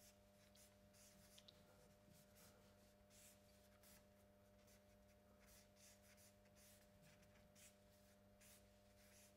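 Faint, scratchy strokes of a dark drawing stick on paper at an easel, short and irregular, coming about once or twice a second, over a steady low hum.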